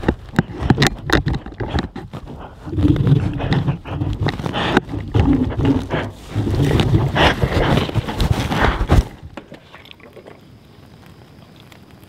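A dog grabbing and carrying the camera in its mouth: irregular close knocks, scrapes and snuffling right against the microphone. It goes quiet about nine seconds in, once the camera is dropped in the grass.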